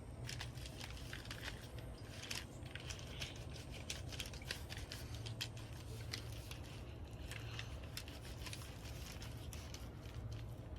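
Hands squishing and kneading a raw ground-meat meatloaf mixture, shaping it into a loaf, with irregular wet clicks and slaps over a low steady hum.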